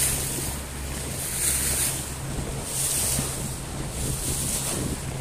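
A speedboat's engine running at a steady drone while the boat moves across choppy sea, with water rushing past the hull and wind buffeting the microphone in gusts.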